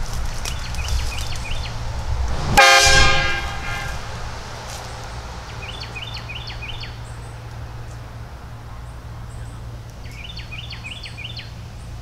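Portable train horn sounding one short multi-tone blast, about a second long, starting sharply about two and a half seconds in. Birds chirp in short bursts before and after it.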